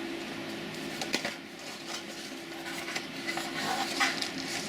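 Light clicks and rustles of a multimeter's packaging being handled, over a low humming tone that comes and goes.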